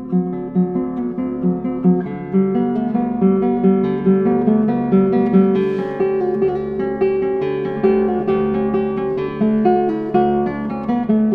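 Solo nylon-string classical guitar played fingerstyle: a continuous stream of plucked notes, each ringing on into the next.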